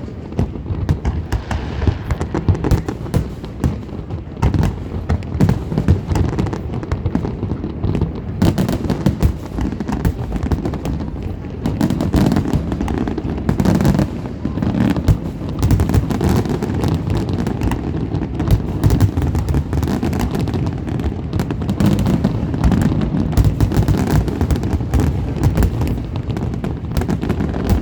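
Large aerial fireworks display: a continuous barrage of overlapping shell bursts and deep booms, with sharper cracks among them.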